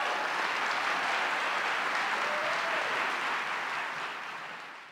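Audience applauding, steady and then fading away near the end.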